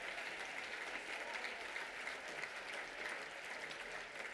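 Audience applauding, many hands clapping steadily and easing off a little near the end.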